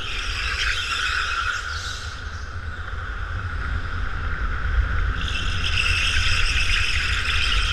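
Go-kart tyres squealing through tight corners of an indoor track over a steady low rumble. The squeal is strong at the start, eases off in the middle and comes back from about five seconds in.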